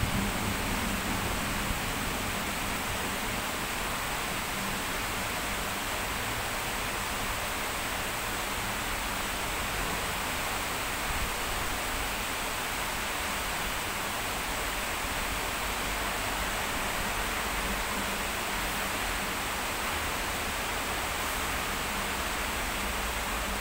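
Steady hiss of heavy rain pouring down, with the tail of a thunder rumble fading out in the first second.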